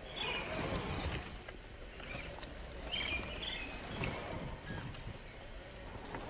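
Outdoor woodland ambience with a few short bird chirps, and light knocks and crunches as an RC scale crawler's tyres climb over rocks.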